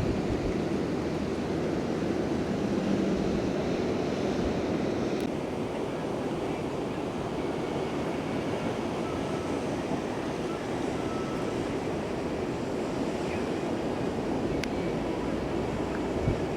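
Steady rush of ocean surf from big breaking waves, with wind rumbling on the microphone.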